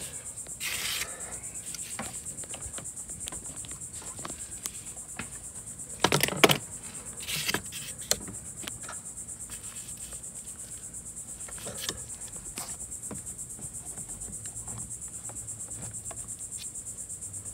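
Insects chirping in a steady, high, fast-pulsing trill, with a few knocks and clatters from handling, loudest about six seconds in.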